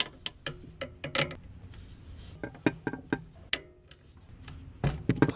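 Irregular metallic clicks and clinks of a ratchet driving a 14 mm flare-nut crowfoot on an extension, working loose a power steering hose fitting, with a louder cluster of clicks near the end.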